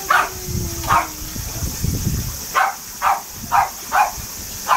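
A dog barking: about seven short barks, spaced out at first and then coming about two a second in the second half.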